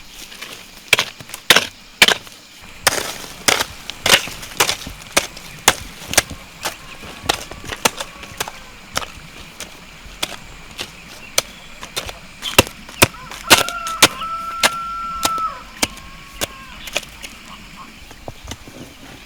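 Repeated sharp knocks or chopping strikes, about two a second, with a brief steady whistling tone about two-thirds of the way through.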